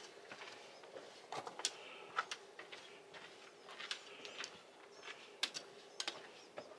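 Footsteps on a rocky dirt trail: irregular, faint crunching steps on grit and stones.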